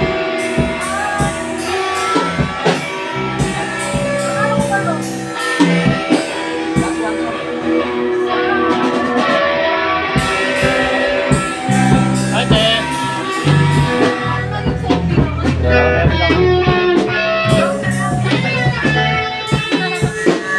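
A band playing live at a sound check: electric guitar over drums, with regular sharp drum and cymbal hits and a steady low bass line.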